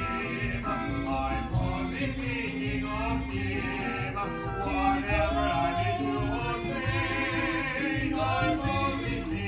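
Stage musical performed live: several voices singing with vibrato over instrumental accompaniment.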